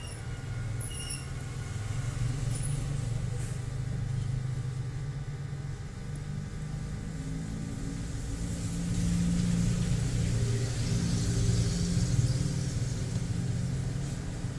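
Steady low rumble that swells for a few seconds after the middle, with a hiss rising alongside it.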